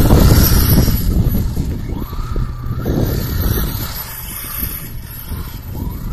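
Electric HobbyKing Rattler RC buggy on a 3S battery running at speed, its motor and drivetrain whining, loudest as it passes close in the first second. About two seconds in the whine rises in pitch as it accelerates out of a corner, then it fades as it heads away and rises again near the end.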